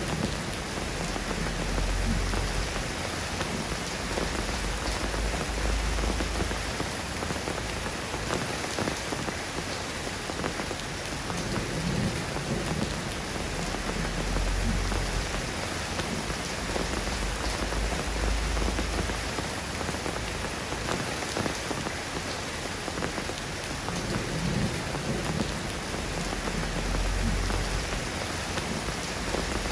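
Steady rain falling on a surface, an even hiss, with a low rumble swelling and fading a few times underneath.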